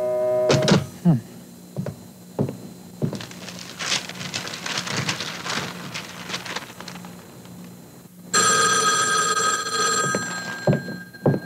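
Telephone ringing: one ring starts about eight seconds in and lasts about two seconds.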